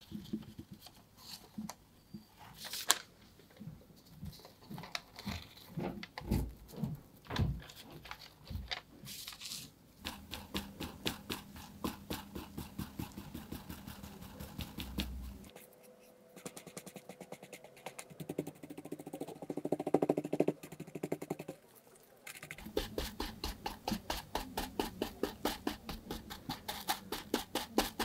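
Small bristle brush dabbing and scrubbing loose gold foil onto a shoe's surface in quick repeated strokes, many a second, with the thin metal foil and its paper backing crinkling and rustling under gloved hands. There is a louder spell of rustling a little past the middle.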